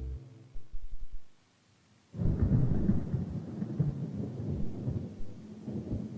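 A deep, irregular rumble that starts suddenly about two seconds in, after music stops and a moment of near silence.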